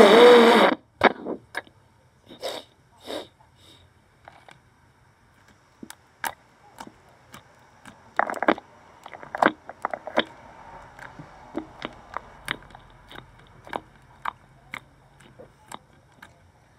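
A short loud vocal squeal at the start, then scattered clicks, taps and a brief scraping of small objects handled close to the microphone.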